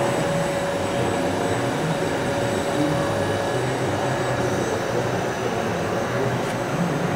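Hardinge Quest GT27 CNC gang lathe running under power, a steady mechanical hum with a faint whine that fades out about three seconds in.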